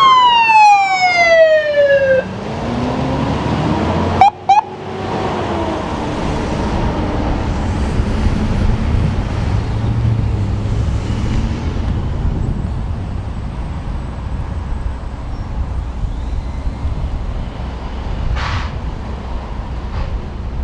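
An emergency vehicle's electronic siren winds down in a falling wail and cuts off about two seconds in. A fainter siren sweep follows after a brief break, then a steady low engine rumble and road noise.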